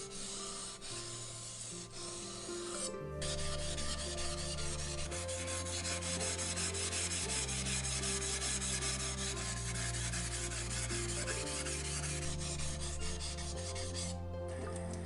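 Steel Japanese kitchen knife blade being stroked back and forth on a fine 4000-grit water stone, a continuous gritty scraping of many quick strokes with two brief pauses, about 3 seconds in and near the end. Background music with slow sustained bass notes plays underneath.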